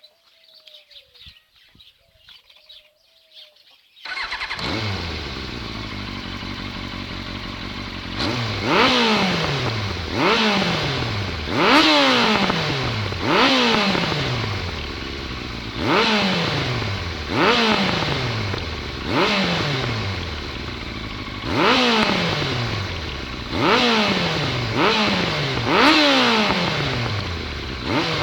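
1999 Yamaha YZF-R1 sport bike's inline-four engine starting about four seconds in, idling briefly, then revved over and over, a sharp rise and fall about every second and a half, with the exhaust note to the fore.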